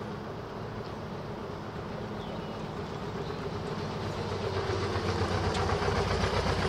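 Engine of an arriving classic vehicle running at low speed and steadily growing louder over the second half as it draws closer.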